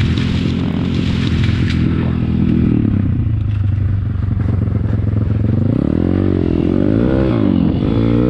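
MRF 140 RC Big pit bike's 140 cc single-cylinder four-stroke engine running steadily, then revved up and down several times near the end.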